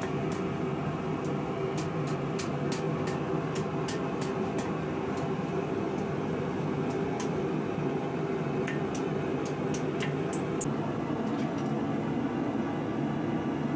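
Hammer striking red-hot rebar steel on an anvil while the guard and handle are shaped, heard as quick runs of sharp taps over a steady roar. The taps stop a few seconds before the end.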